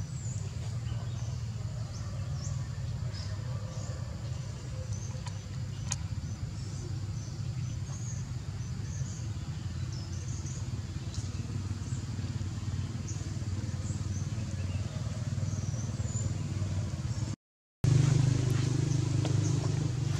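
Steady low engine drone with short, high bird chirps over it. The sound cuts out for a moment near the end, and the drone returns louder.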